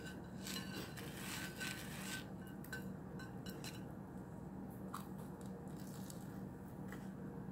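Banana bread being bitten and chewed close to the microphone: a run of crisp, crackly bites and mouth sounds in the first few seconds, then a few single clicks, over a steady low hum.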